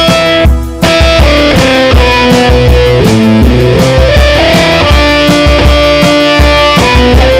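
Instrumental pop music: a guitar carries the melody over a steady drum-kit beat and bass. The music drops out briefly just under a second in, then comes back in.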